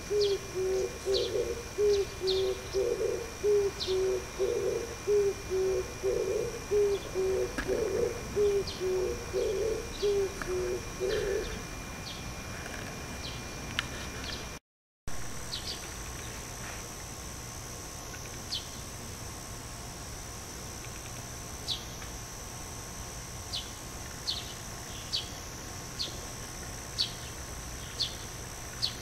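Oriental turtle dove singing its rhythmic, repeated low coo phrases for about the first eleven seconds. After a brief gap, only short high chirps of small birds are left, about one a second.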